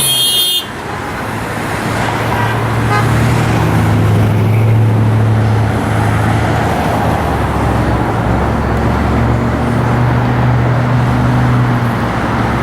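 Steady motorway traffic noise, the low drone of engines and tyres of vehicles passing, after a short, loud car horn blast at the very start.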